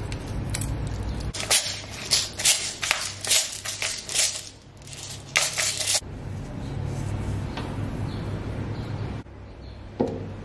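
Pepper mill grinding over food: a run of sharp, irregular crunching clicks that stops abruptly, followed near the end by a couple of knocks as a plastic lid is set on a food chopper bowl.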